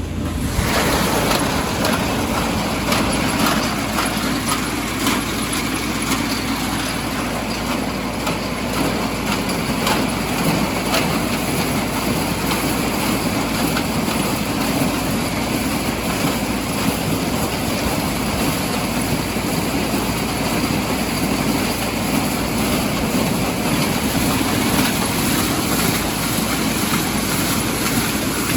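Farm tractor running steadily under load while a mechanical ear corn picker clatters behind it.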